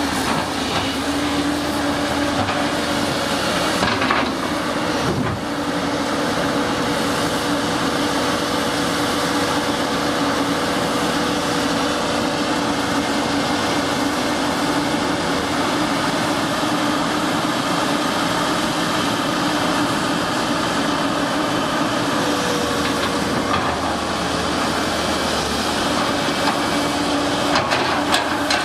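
Caterpillar 320C hydraulic excavator working: its diesel engine runs steadily at working speed under a constant hum. A couple of sharp knocks come about four seconds in and again near the end.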